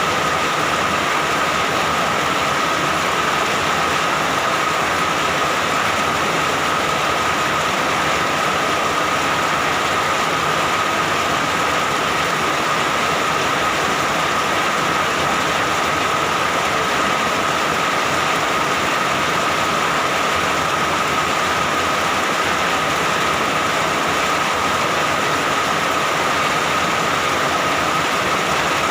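Steady rain falling continuously, an even hiss with no breaks, with a faint constant tone running through it.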